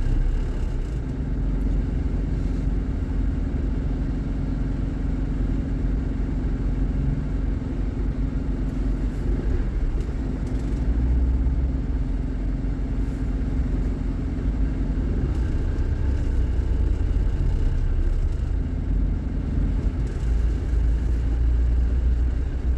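Low rumble of an Isuzu Panther's engine and tyres heard from inside the cabin while creeping in heavy toll-road traffic, with a steady drone that drops away about fifteen seconds in.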